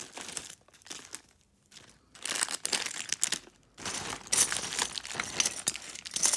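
Plastic bags and cellophane-wrapped party favors crinkling as a hand rummages through a pile of them. The rustling is light and broken at first, then turns dense and louder from about two seconds in, with a short pause just before the four-second mark.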